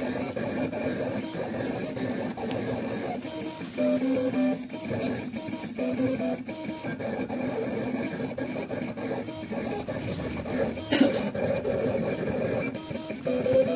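Vinyl cutting plotter working through a cutting job: its stepper motors whine in tones that jump to new pitches every second or so as the blade head and the sheet move to cut lettering. A sharp click about eleven seconds in.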